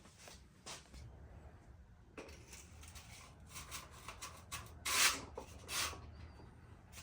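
Rubbing and scraping of hand work on parts, with scattered light clicks and two louder scrapes about five and six seconds in.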